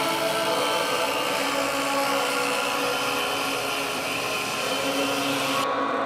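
Electric orbital polisher with a foam pad running steadily while buffing car paint: an even, hissing whir that cuts off suddenly near the end, over background music.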